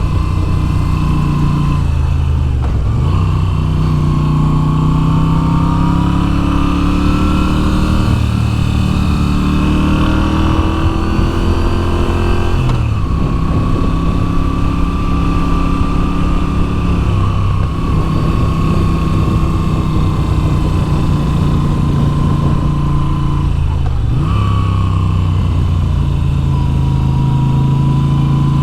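Moto Guzzi V7's air-cooled transverse V-twin under way, its pitch rising and falling as the throttle opens and closes. It breaks sharply in pitch about three times.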